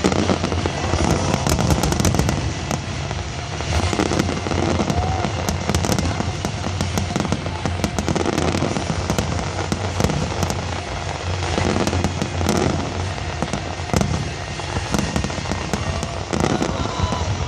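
Fireworks display: a dense, continuous crackling and popping of bursting shells over a steady low rumble.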